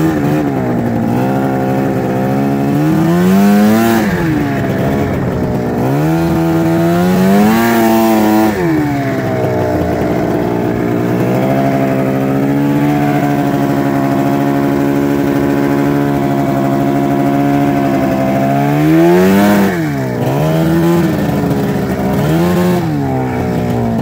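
Arctic Cat ZR snowmobile's two-stroke engine, heard from the seat while riding. Its pitch rises and falls with the throttle several times, and it holds steady for several seconds in the middle.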